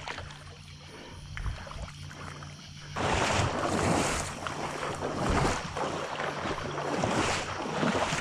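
Water splashing and sloshing around a hooked brown shark being brought alongside a kayak. It is quieter at first over a low steady hum, then from about three seconds in comes in louder surges every half second to a second.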